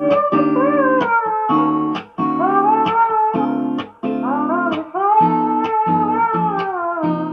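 Music: a song's guitar intro, plucked and strummed chords under a gliding melody line, starting suddenly out of silence with short drops around two and four seconds in.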